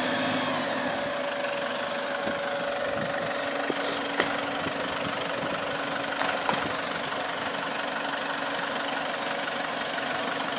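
Isuzu Trooper's engine running steadily at low revs as the 4x4 crawls down over a rocky step, its pitch dropping a little a few seconds in. A few short sharp knocks come partway through.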